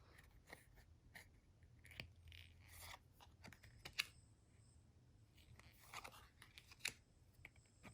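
Quiet handling of Pokémon trading cards and their foil pack: a few soft, scattered clicks and crinkles.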